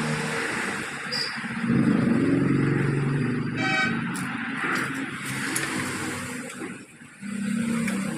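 Motor vehicle engines running in passing road traffic, a steady hum that rises and falls, with a short high toot about three and a half seconds in.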